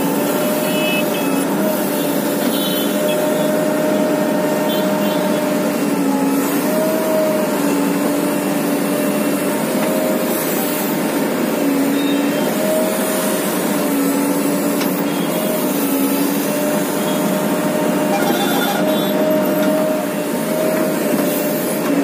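JCB 3DX backhoe loader's four-cylinder diesel engine running steadily while the backhoe digs, its note dipping briefly in pitch every few seconds.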